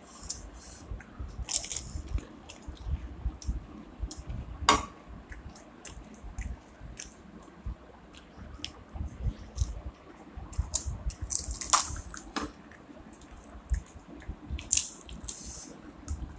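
Phuchka (pani puri) being eaten: crisp hollow puri shells cracked open with the fingers and chewed, giving irregular crunches, clicks and wet squishes, with a few louder crackling crunches.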